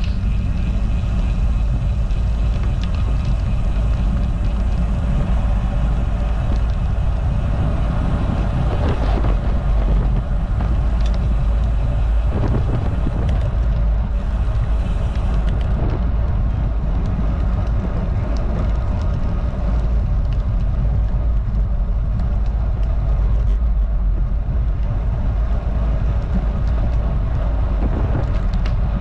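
Steady low wind rumble over an action camera's microphone on a road bike moving at about 15 to 20 mph, mixed with the tyres rolling on rough asphalt.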